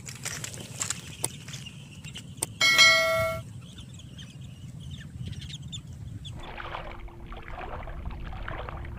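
Two light mouse-style clicks followed by a short bright bell ding, the sound effect of an animated subscribe-and-notification-bell button. After that, from about two-thirds in, short noisy bursts come roughly once a second.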